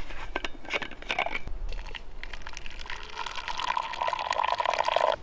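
A few sharp clicks and rattles of handling, then from about three seconds in, hot water poured from a thermos flask into an enamel mug in one steady stream, stopping abruptly at the end.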